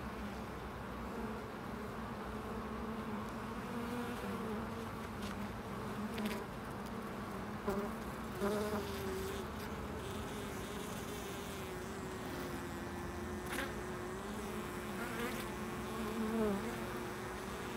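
Honeybees buzzing at the hive entrance: a steady colony hum whose pitch wavers slightly as bees move near the microphone, with a few faint ticks.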